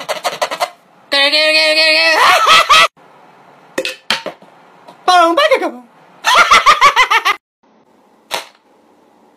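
A man's goofy, wordless vocal noises and bursts of laughter in several separate outbursts with short pauses between: quick cackling runs, a long drawn-out cry about a second in, and a falling cry about five seconds in.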